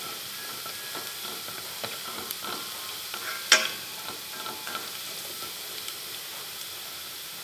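Minced garlic sizzling in hot cooking oil in a stainless steel pot, stirred with wooden chopsticks that click against the metal, with one louder click about halfway through. The garlic is being fried until fragrant.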